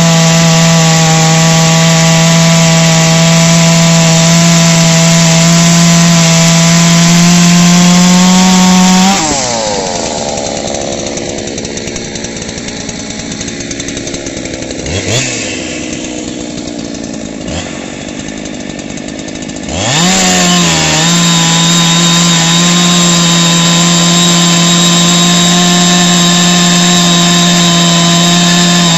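A ported Neo-tec NH 872 two-stroke chainsaw (an MS380 clone) runs at full throttle through a large log, then its engine winds down as the cut ends, about nine seconds in. After a quieter stretch with a couple of short blips, a ported Baumr-AG SX92 chainsaw (a 372XP clone) revs up about twenty seconds in and holds full throttle cutting through the log.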